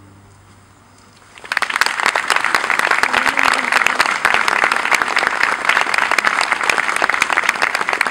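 The last low note of the cello and double bass ensemble dies away, then about one and a half seconds in an audience breaks into applause, many hands clapping steadily.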